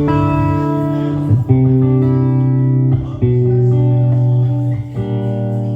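Amplified electric guitar playing a few long, held notes and chords, changing about three times. This is a line check while a buzz is being chased, which the players suspect comes from a bad battery.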